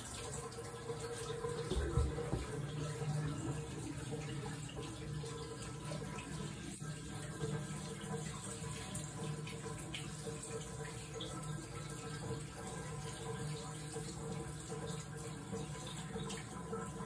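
Water running steadily from a tap, with a soft thump about two seconds in.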